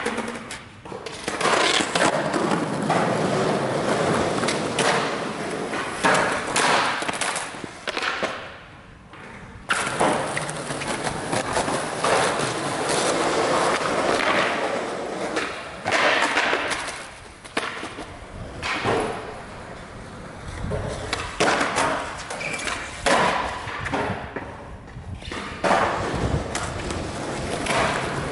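Skateboard wheels rolling on smooth concrete, with repeated sharp clacks and slaps of decks hitting the ground as skaters pop tricks and land. The rolling drops away briefly about eight seconds in and again near the end.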